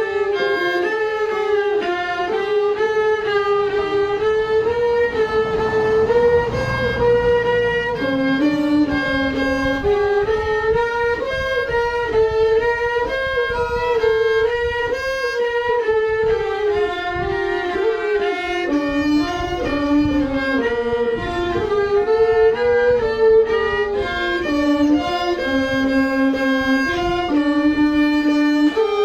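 A bowed string instrument playing a solo melody, one line of notes that move up and down in small steps, each held for about half a second to a second.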